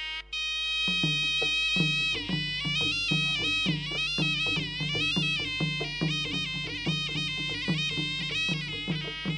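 Traditional Kun Khmer ring music: a reedy sralai oboe plays a high, wavering, sliding melody over a steady drum beat that comes in about a second in.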